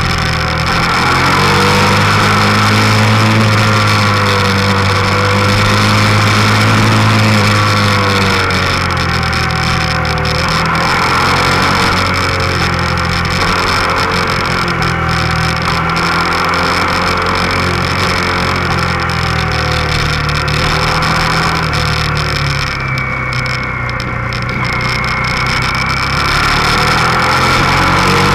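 Motorcycle engine heard from the bike's own onboard camera, its note rising and falling again and again as the throttle opens and closes through the bends, over a steady rush of wind noise.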